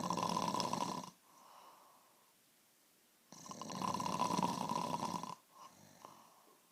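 A woman snoring heavily: two loud, rattling snores about four seconds apart, with faint breathing in the quiet between them. The uploader takes snoring like this as a sign of unhealthy breathing in sleep, serious enough that her doctor put her on an oxygen machine at night.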